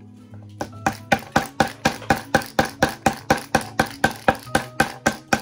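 A hammer driving nails, struck fast and evenly at about four blows a second, with a brief pause just after the start.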